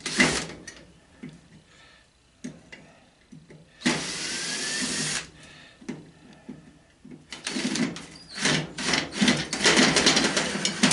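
A power drill runs briefly for about a second and a half, a few seconds in, between scattered clicks and knocks of metal faucet parts and tools being handled. Near the end comes a dense run of clicking and rattling as the parts are worked.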